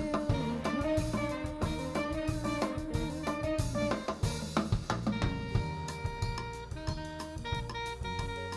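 Live jazz band playing, with drum kit, bass, keyboard, electric guitar and saxophones. The drums are prominent throughout, with a sliding melody line in the first half giving way to held chords in the second.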